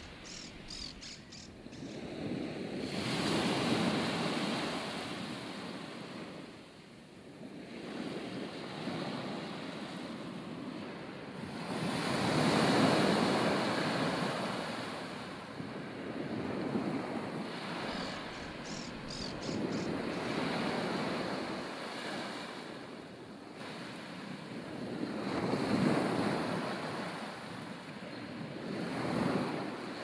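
Ocean waves breaking and washing up the shore in slow surges every few seconds, with a breeze behind them. A quick run of high chirps comes twice, once near the start and once past the middle.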